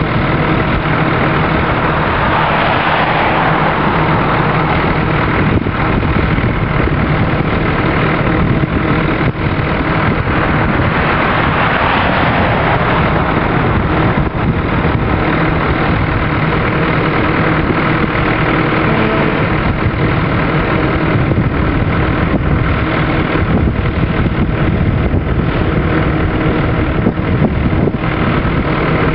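Diesel freight locomotives running steadily, a constant engine drone with no speech.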